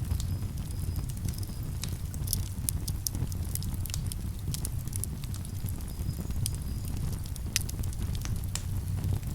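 Campfire crackling, with frequent sharp, irregular pops and snaps of burning wood over a low steady rumble.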